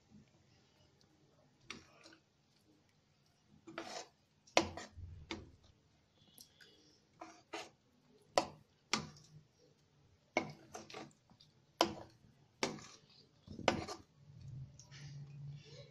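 A metal ladle knocking against a metal pan while stirring a thick simmering curry, about a dozen irregular clinks. A low hum comes in near the end.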